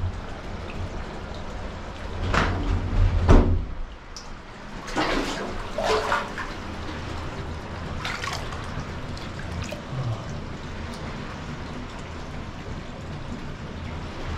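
Hot-spring water running steadily from a spout into an open-air bath tub, a constant trickling pour. Several short knocks or bumps come in the first half.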